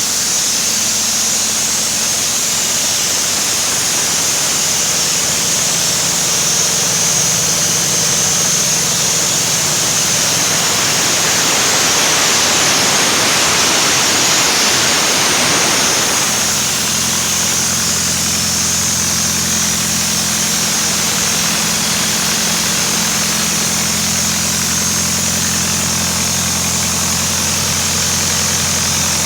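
PKSD-5.25 mobile diesel air compressor, freshly overhauled, running steadily. A rushing hiss swells and fades from about a third of the way in to just past halfway, after which the engine's low note comes through stronger.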